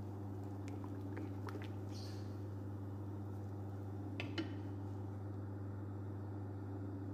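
Steady low electrical hum, with a few faint light clicks of a wooden spoon against a stainless steel pot in the first second and a half and a couple more about four seconds in.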